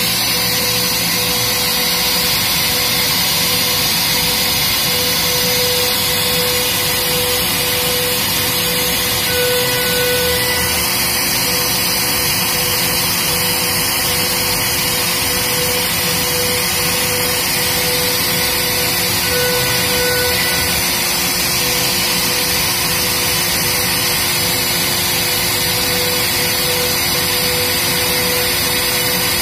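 PrintNC CNC router's spindle running at 30,000 RPM with a steady whine as a 1/4-inch two-flute down-cut end mill cuts wood at 3000 mm/min and 3 mm depth of cut. The spindle is running faster than the intended 17,000 RPM. The dust extraction vacuum runs steadily underneath.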